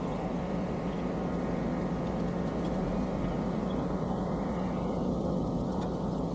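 Truck engine running at raised revs to drive the loader crane's hydraulics, a steady drone as the crane works.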